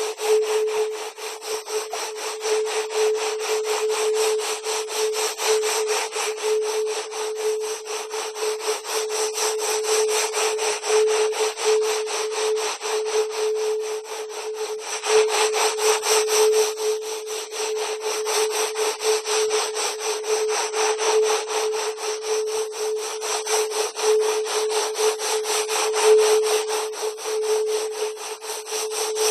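Electronic wave-genetics sound recording: a steady mid-pitched tone under a fast, dense crackle that fills the upper range, with no bass.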